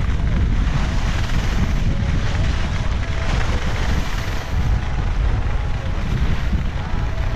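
Wind buffeting an action camera's microphone during a ski run: a loud, steady low rumble with a rushing hiss over it.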